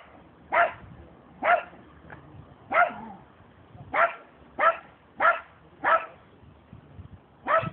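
Small dog barking: about eight short, high-pitched yaps at irregular intervals, with a longer pause before the last one near the end.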